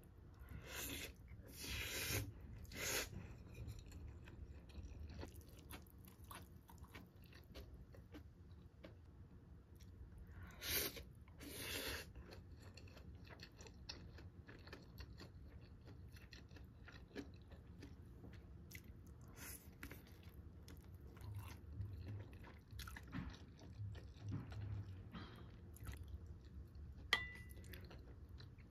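Close-up eating sounds: chewing and crunching mouthfuls of kimchi bibim-guksu (spicy noodles with crunchy kimchi). There are a few louder short bursts in the first three seconds and again around eleven seconds, and a single sharp, briefly ringing click near the end.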